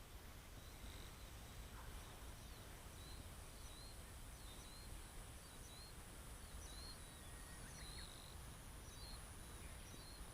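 Faint, repeated short chirps of swallows over a quiet steady hiss, with a thin high steady whine throughout.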